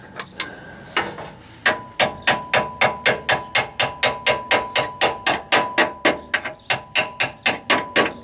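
Hammer tapping rapidly on metal, about three to four blows a second, starting a second or so in, with a steady metallic ring under the blows.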